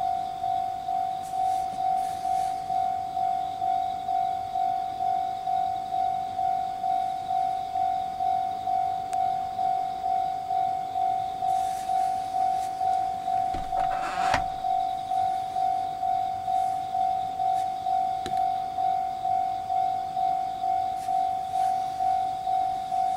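Japanese railway level crossing warning bell, an electronic ding repeating evenly at about two strokes a second, signalling an approaching train. A short clatter about 14 seconds in.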